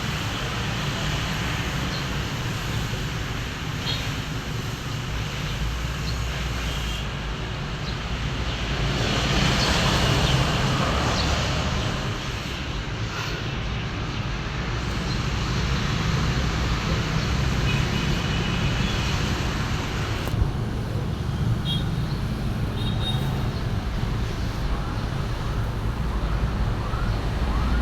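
Steady road traffic in heavy rain: a constant low rumble of passing vehicles under a hiss of rain and wet tyres.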